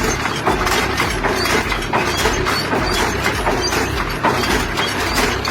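Massey Ferguson tractor straining to pull out a deep-rooted tree stump: a dense, steady clatter of many small clicks and cracks over the working machine.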